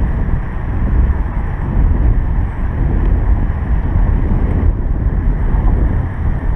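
Wind buffeting the microphone: a loud, steady low rumble with no words over it.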